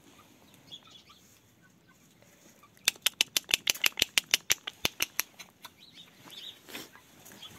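Hens in their run: about a third of the way in, a rapid series of sharp taps or wing flaps, roughly six a second for about two and a half seconds. Faint clucking follows near the end.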